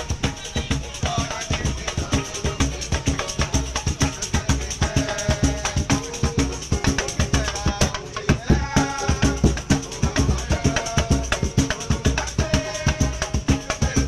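Live samba band playing: drums and rattling shaker percussion keep a dense, even beat, with pitched melody or voices over it.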